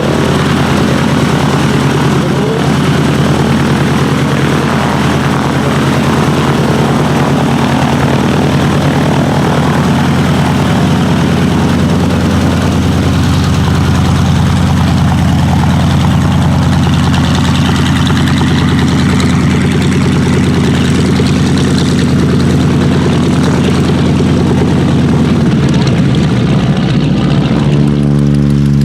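North American Harvard AT-6's nine-cylinder Pratt & Whitney Wasp radial engine and propeller running loud and steady. Near the end the engine note settles into a smoother, steadier drone.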